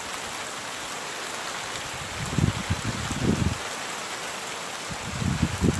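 Heavy rain hissing steadily, with two spells of low rumbling from strong wind buffeting the microphone, about two seconds in and again near the end.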